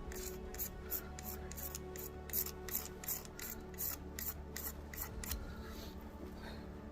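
Striker scraped repeatedly along a ferro rod to shave off material for a fire, about three strokes a second, stopping about five seconds in.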